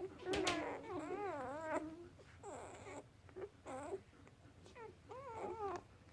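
Newborn puppies, about a day and a half old, whimpering and squealing in a series of short cries that waver up and down in pitch. The cries are loudest in the first two seconds and turn fainter and more scattered toward the end.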